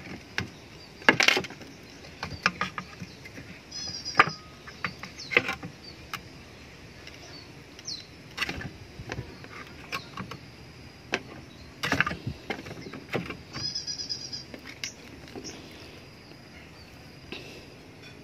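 Irregular knocks and clicks as a trigger-grip unit is pressed and worked into the slot of a homemade wooden spear-gun stock. The loudest knocks come about a second in and again near the middle.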